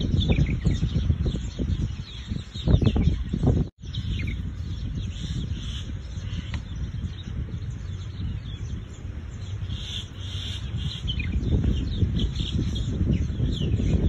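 Small birds chirping and twittering in many short, quick calls over a steady low rumble. The sound cuts out for an instant about four seconds in.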